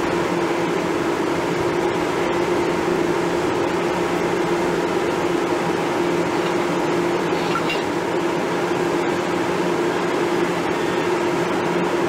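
Standing DB electric locomotive humming steadily, its cooling blowers and transformer running, with a constant low tone under a whirring hiss.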